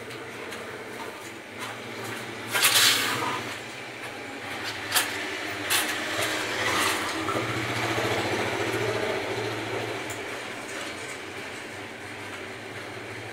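Long aluminium window-frame sections being handled and moved: a short loud metallic scrape about two and a half seconds in, then a few sharp clicks, over a steady low rumble that swells in the middle and fades.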